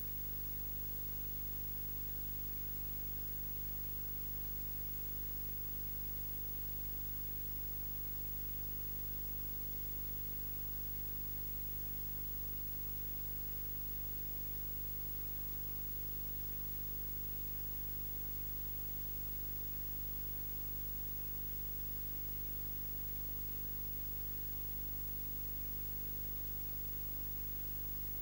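Steady electrical hum and hiss with no other sound in it: the camcorder's audio track recorded with its microphone unplugged.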